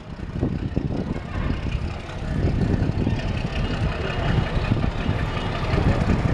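YDM 4 metre-gauge ALCO diesel locomotive running as it slowly approaches with its passenger train, a low, uneven rumble.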